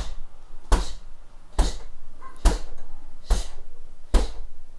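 Gloved fist striking a hanging heavy punching bag in single straight punches, six sharp hits evenly spaced a little under a second apart.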